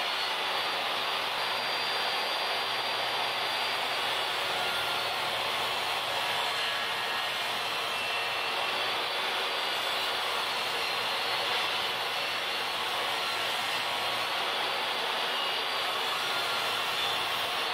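Portable table saw running, its motor giving a steady whine and hiss with no clear rise or fall.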